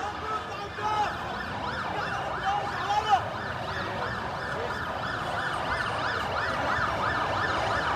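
Emergency vehicle siren in a fast rising-and-falling yelp, about three cycles a second. It comes in about a second and a half in and grows steadily louder as it approaches.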